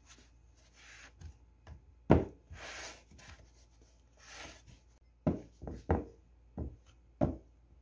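A drinking glass rolled and pressed over dough on a tray to flatten it: scattered knocks of the glass on the tray, the loudest about two seconds in, with rubbing and scraping between. A run of four or five knocks comes in the last few seconds.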